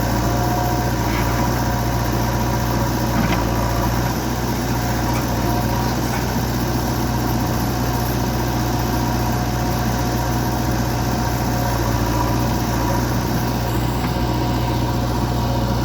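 Backhoe loader's diesel engine running steadily at a constant speed, with a faint wavering whine above the engine note.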